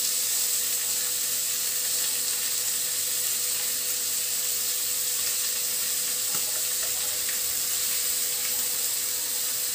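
Chunks of beef searing in butter and oil in a pot on a gas burner: a steady sizzle as the meat browns.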